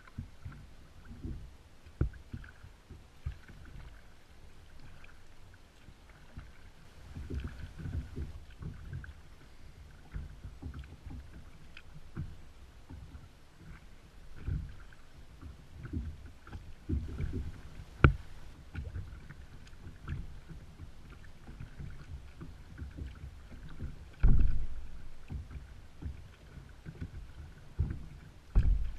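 Small waves lapping and slapping against a kayak's hull, in irregular low thumps and splashes with a few sharper knocks; the sharpest knock comes a little past halfway and a heavy thump about five seconds before the end.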